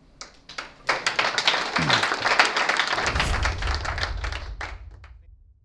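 Audience applauding: a burst of clapping that builds quickly and then fades out near the end.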